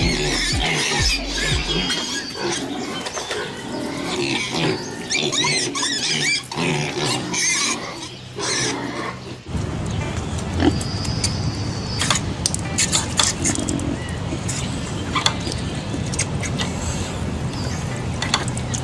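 Pigs squealing and grunting, with background music underneath. About halfway through the sound changes abruptly to a different recording full of sharp clicks and a busy noisy haze.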